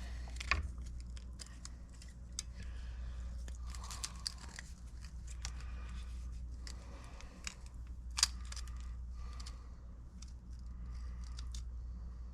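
Hand work on rusty metal: intermittent scraping with scattered sharp clicks, the loudest about half a second in and about eight seconds in, over a steady low hum.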